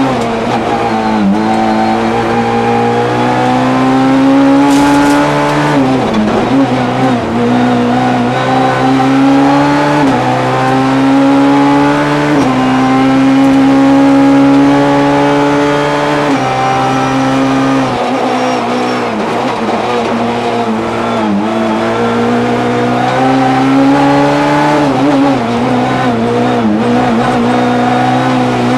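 Peugeot 206 S1600 rally car's 1.6-litre four-cylinder engine at stage pace, heard from inside the cabin. It revs high and falls away over and over, with several sudden drops in pitch where the sequential gearbox shifts, as the car accelerates and brakes down through the gears into bends.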